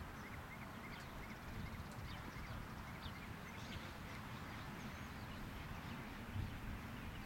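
Open-air ambience: wind rumbling on the microphone, with faint, scattered bird chirps.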